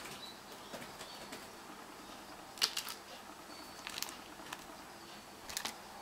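Small sharp clicks and taps from a European robin feeding on seed on a tiled floor, coming in three short clusters about a second and a half apart.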